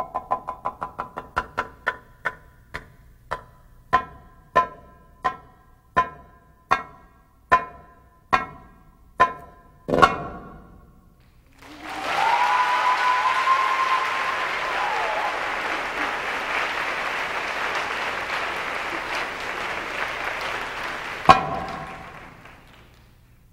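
Single ringing darbuka (goblet drum) strokes, slowing steadily until they stop about ten seconds in. Then audience applause and cheering, with one more drum stroke near the end as the applause fades.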